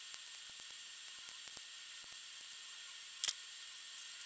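Faint small clicks and crackles from cured resin flash being picked and snapped off a freshly moulded forged carbon fibre brake lever, with one sharper snap about three quarters of the way through, over a steady faint hiss.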